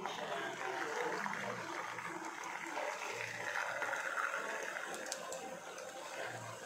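Hot oil sizzling steadily as poha-and-potato fingers deep-fry in a kadai.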